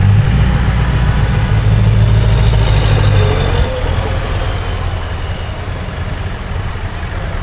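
Heavy diesel engines of Scania trucks running as they pull away slowly: a deep rumble, loudest for the first three and a half seconds, then easing off.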